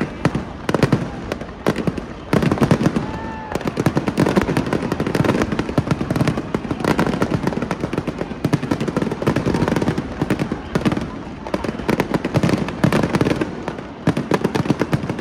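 Aerial fireworks display going off: dense crackling pops with louder bangs about every second.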